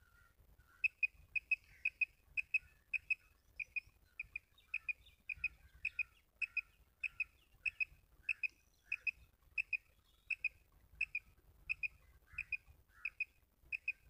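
Quail call blown by hand to lure quail toward a net: quick, high paired chirps repeated evenly, about two pairs a second, with fainter, lower chirps in between.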